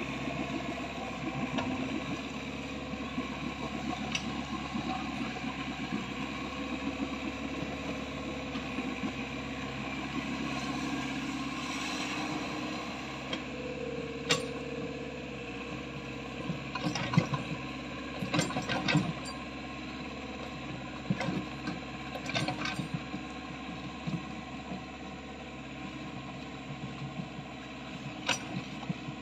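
Mini excavator's diesel engine running steadily as the machine wades through deep water, with a few sharp knocks and clanks around the middle and again near the end.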